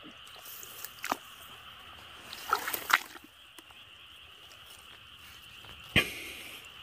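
Water sloshing and splashing in a few short bursts: about a second in, a cluster near the middle, and a sharp loud one about six seconds in. A steady high-pitched drone runs underneath.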